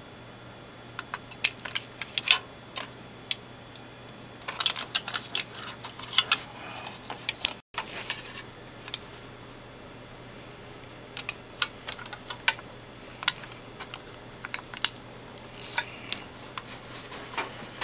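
Copper foil tape being handled and pressed down onto a monitor's sheet-metal shield: irregular clicks and crackles in scattered clusters.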